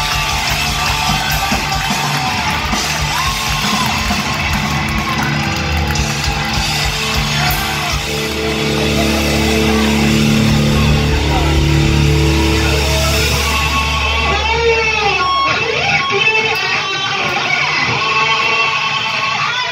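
Live heavy rock played loud by a band led by electric guitar, with bass and drums under it. About fourteen seconds in, the bass and cymbals drop out and the guitar carries on with notes that bend up and down in pitch.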